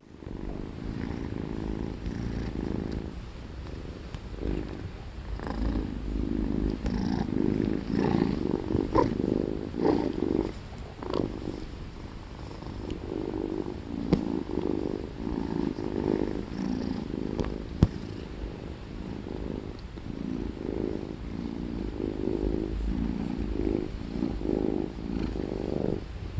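Domestic cat purring close up, swelling and fading about once a second. A couple of sharp clicks come through near the middle.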